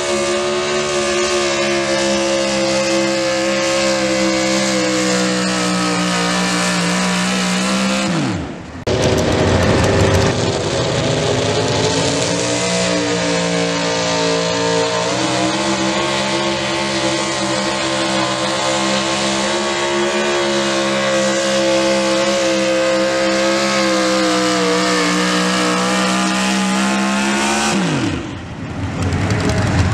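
Super stock 4x4 pulling trucks' engines screaming at full throttle while dragging the pulling sled. One truck's engine holds high revs for about eight seconds, then falls off sharply at the end of its pull. A second truck then runs a long, steady full-throttle pull, and its revs drop away near the end.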